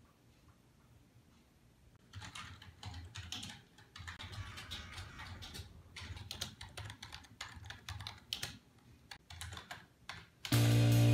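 Typing on a computer keyboard: irregular runs of key clicks with brief pauses, starting about two seconds in after near silence. Loud music cuts back in just before the end.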